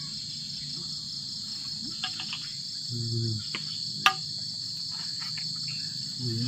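Steady high-pitched trilling of an insect chorus, continuous throughout, with a few small clicks and one sharp click about four seconds in.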